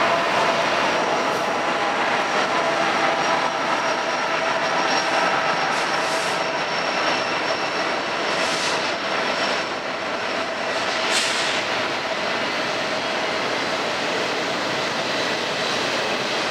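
Freight train rolling past, a Union Pacific intermodal stack train with a diesel locomotive in the consist: a steady rumble and hiss of steel wheels on rail with faint whining tones over it.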